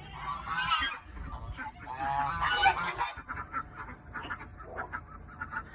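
Domestic geese honking: two loud bouts of calls, about half a second in and about two seconds in, with softer quick calls in between.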